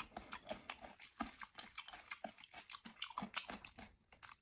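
Close-up mouth sounds of chewing a crunchy piece of braised beef, a dense run of quick, irregular crackles and crunches.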